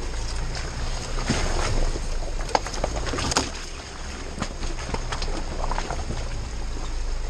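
Jeep Wrangler crawling slowly through a rocky creek bed: a steady low engine rumble, with the tyres splashing through shallow water and knocking and crunching over rocks in scattered sharp clicks, the loudest knocks about two and a half and three and a half seconds in.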